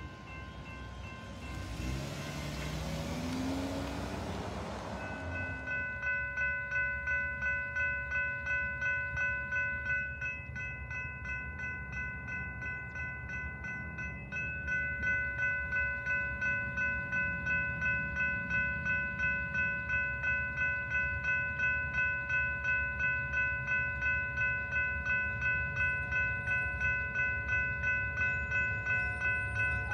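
Railroad grade-crossing warning bell ringing steadily, about two strokes a second, as the signals flash. A vehicle passes in the first few seconds.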